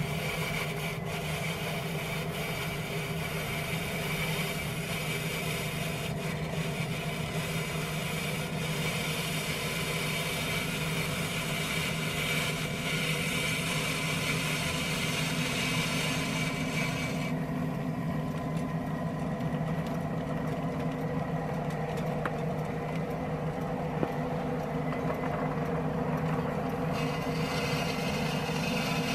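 A ride-on scale locomotive pushing a wedge snow plow through icy snow: a steady engine hum under scraping and rattling from the plow and cars on iced rails. The high scraping drops away for about ten seconds past the middle.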